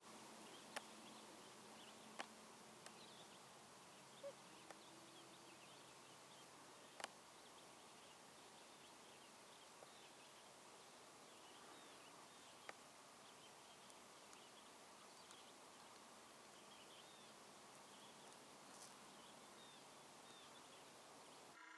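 Near silence with faint, scattered high chirps of distant small birds and a few sharp clicks, mostly in the first third.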